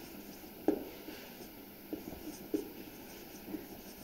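Marker pen writing on a whiteboard: a handful of short, scratchy strokes of the tip across the board.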